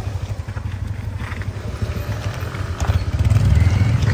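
Motorcycle engines running at low speed, a low, rapid pulse of engine firing; it grows louder about three seconds in as a bike rolls down toward the microphone.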